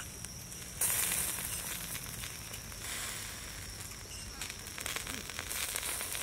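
Marinated meat skewers grilling over charcoal on a wire grate: a steady sizzling hiss with small crackles, swelling louder about a second in.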